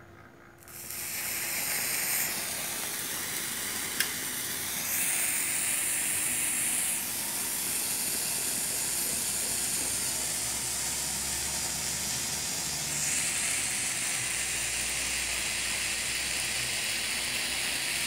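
A sparkler birthday candle catches about a second in and then burns with a steady fizzing hiss as it throws up a fountain of sparks. There is a single sharp click about four seconds in.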